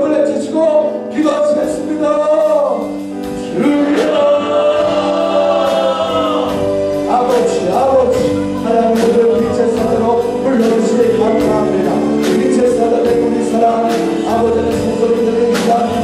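Gospel praise song: a man sings into a microphone over a band with a steady drum beat, other voices singing along.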